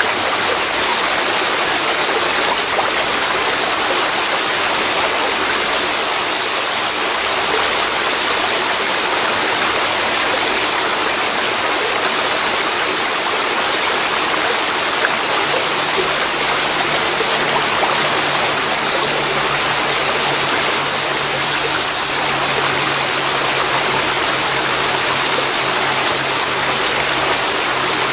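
Waterfall pouring into a river: a loud, steady rush of water that never changes.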